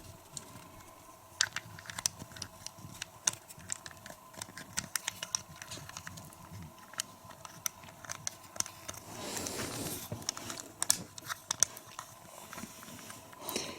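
Plastic Lego bricks clicking and knocking together as they are handled and a movable section is worked into place, with about a second of rougher rustling noise around nine seconds in.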